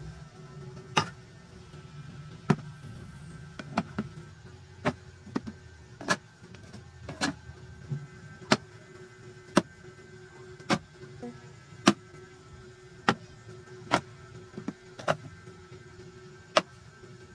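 Metal food cans being set down one after another on a tiled counter: a sharp clack about once a second, over a faint steady hum.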